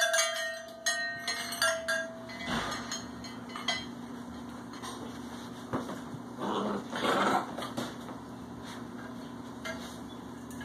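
Puppies moving about in a wire exercise pen: a cluster of ringing metal clinks in the first two seconds, then rustling and scuffling, over a steady low hum.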